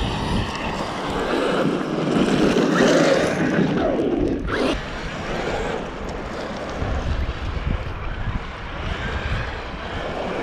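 Large brushless electric RC monster trucks driving over dusty, stony ground, a continuous noisy rush of tyres and drivetrain, with wind noise on the microphone. It is strongest a couple of seconds in.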